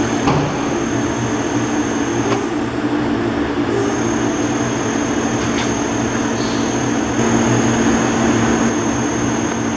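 Gildemeister NEF 520 CNC lathe running: a steady machine hum with a thin high whine that cuts out briefly after about two seconds and comes back. A couple of sharp clicks come through.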